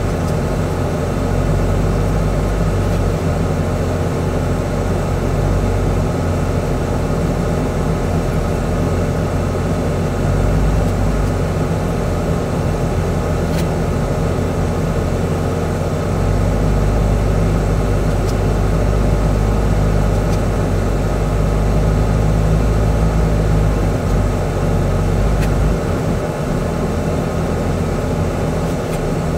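A heavy truck's diesel engine runs steadily, heard from inside the cab as the truck climbs a gravel haul road. It is a continuous low drone with road noise from the gravel.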